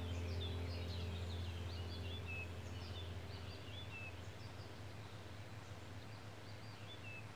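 Small birds chirping in a recorded nature ambience, busiest in the first half and thinning out later, over a low held music drone whose upper notes stop about halfway through as the whole sound fades down.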